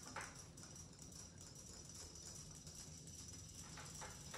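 Faint ticking and light splashing of small battery-powered robotic fish toys flapping their tails through water, over a low steady hum. A few soft clicks stand out, one near the start and a couple near the end.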